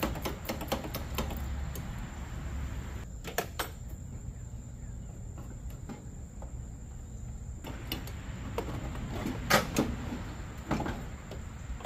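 Hand wrench working the factory hood hinge bolts loose: a quick run of small metallic clicks at first, then scattered clinks and knocks of tool on hinge, the loudest about nine and a half seconds in.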